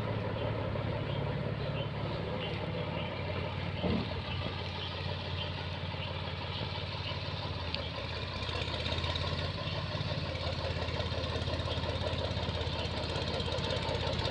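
Mahindra 295 DI Turbo tractor's diesel engine running steadily, with a single knock about four seconds in.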